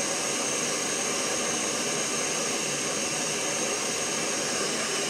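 Jetboil canister stove burner running at full flame, a steady, loud hissing roar of gas burning. It heats one cup of water.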